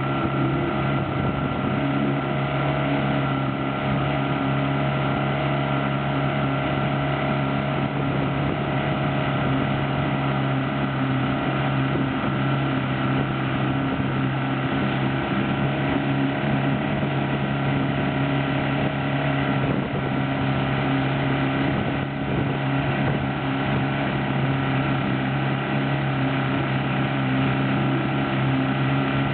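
Mercury Thunderbolt outboard motor running steadily at speed, with the rushing of the churned wake behind it.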